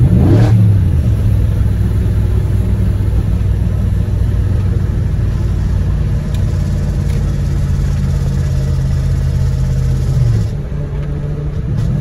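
BMW E39 540i's 4.4-litre V8 running with its stock catalytic converters in place, giving a loud, steady low drone. There is a brief rise in revs right at the start, and the pitch and level drop about ten seconds in. The owner calls it really bad.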